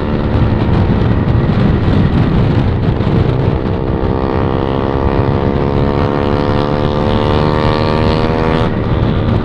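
Yamaha MT-15 single-cylinder motorcycle engine running at a steady cruising speed, heard from a moving bike with wind on the microphone; the engine note climbs gently in the second half.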